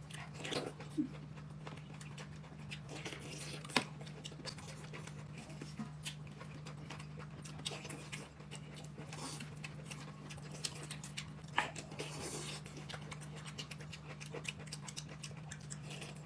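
Quiet close-up eating sounds, chewing and slurping, with scattered light clicks, over a steady low hum.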